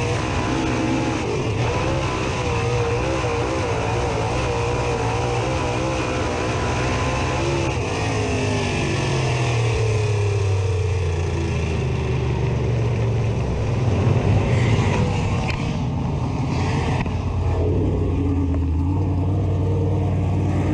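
Dirt late model race car's V8 engine heard from inside the car, running hard at high revs with wind and tyre noise. About eight seconds in its pitch falls as the throttle comes off, and it settles into a lower, steadier drone as the car slows almost to a stop.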